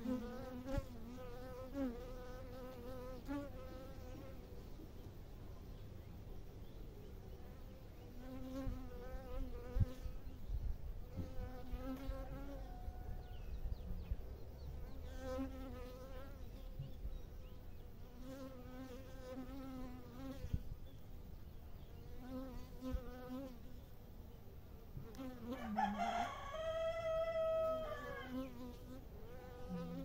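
Honeybees buzzing in the hive: a steady hum that swells into short pitched waves of buzzing every second or two. Near the end a rooster crows once, for about two seconds, louder than the bees.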